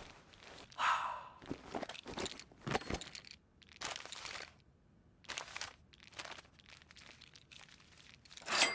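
A run of short, irregular rustling, crunching and tapping sounds with quiet gaps between them, from cartoon sound effects. A brief high tone sounds near the end.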